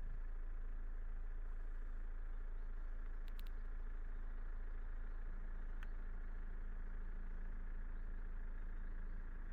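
Car engine and road noise from a slowly driving car: a steady low rumble with a few faint ticks. A low steady hum joins about halfway through.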